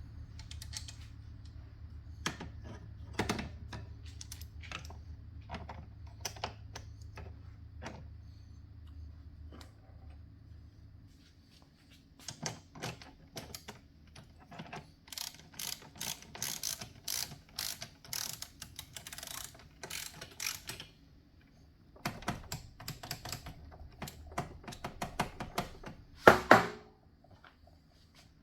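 Hand ratchet wrench clicking in quick runs as bolts are worked on the motorcycle, with scattered metal tool clinks and one loud metallic clank near the end.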